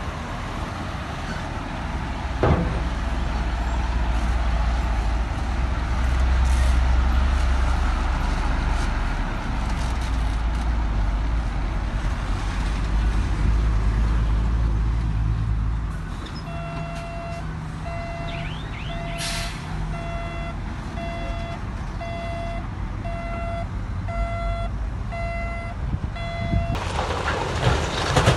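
Heavy diesel construction machinery running with a deep rumble. A little past halfway, a reversing alarm starts beeping steadily about once a second for roughly ten seconds, with a short hiss partway through. Near the end the beeping stops and a broad rushing noise sets in.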